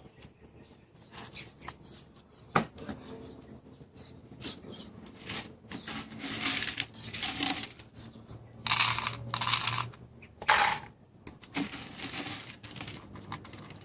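Dry cat kibble being shaken out of its bag: scattered clicks, then three short rattling, hissing bursts, the longest a little over a second, about six, nine and ten and a half seconds in.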